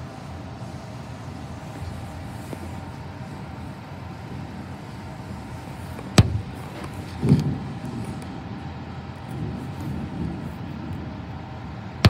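Steady rain falling, then a sharp crack of thunder about six seconds in, followed by a low rolling rumble that swells and fades over the next few seconds. Another sharp crack comes right at the end.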